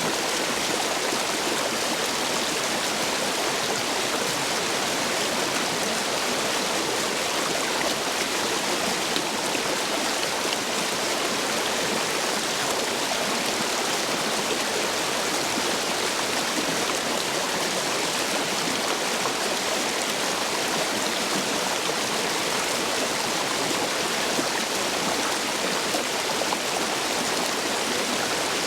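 Stream water rushing and splashing through the gaps between stepping stones in a steady, unbroken flow, running high after heavy rain.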